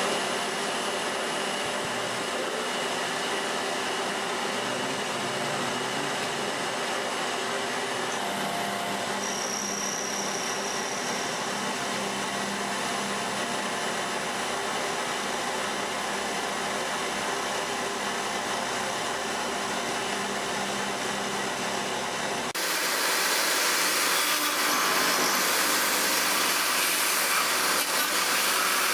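Milltronics Partner 4 CNC milling machine running a machining program: a steady mechanical whir with a faint high whine. About two-thirds of the way in, it changes abruptly to a louder, hissier sound.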